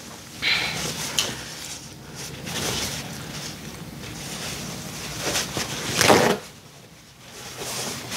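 Paper towel rustling and crinkling as it is unfolded and used to wipe hands, in several irregular bursts, the loudest about six seconds in.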